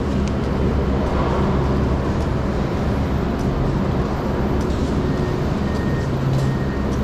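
Steady low mechanical rumble and hum, with a few faint clicks.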